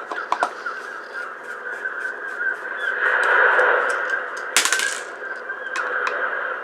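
Gulls calling over and over, with scattered sharp clicks and a short clatter of small tool and part handling about four and a half seconds in.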